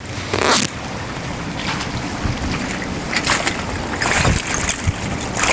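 Wind rushing over the microphone above choppy, flooded river water washing against the shore, with several short louder rushes.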